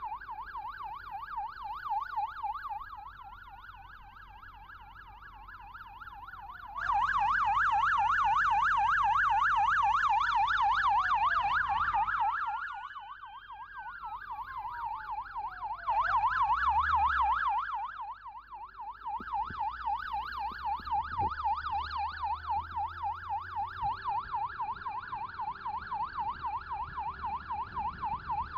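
Emergency sirens: a fast yelp warbling the whole time, with a slower wail rising and falling over it. Both are loudest from about seven to twelve seconds in, and again briefly around sixteen to eighteen seconds.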